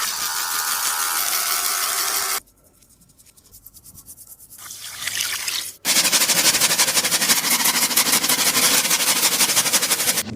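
A paper-and-tape taba squishy crinkling and crackling as it is squeezed. A dense crackle stops abruptly about two seconds in, a softer rustle builds, and then a louder, denser crackle starts about halfway through.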